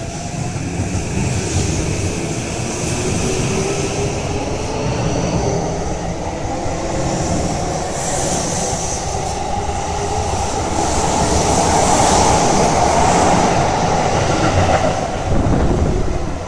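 Tokyo Metro 15000 series electric train pulling away and accelerating. The whine of its VVVF inverter traction motors rises in pitch over a steady wheel-on-rail rumble. It is loudest around the twelve-second mark, as the cars pass close by.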